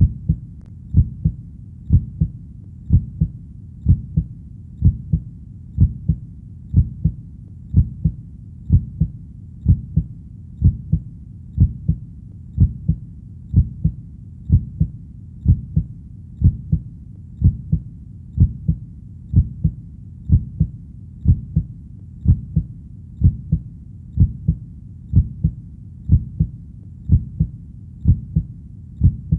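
Heartbeat: steady paired lub-dub thumps at about one beat a second, deep and low, over a faint low rumble between beats.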